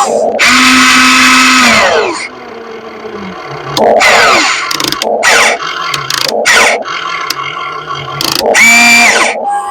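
RC excavator's electric motors whining in loud bursts that start and stop abruptly as it works, the pitch sliding up and down with each move, with a few short clicks between bursts.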